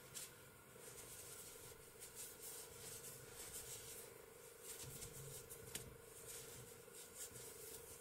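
Near silence, with faint scattered rustles and soft ticks of t-shirt yarn being worked with a metal crochet hook.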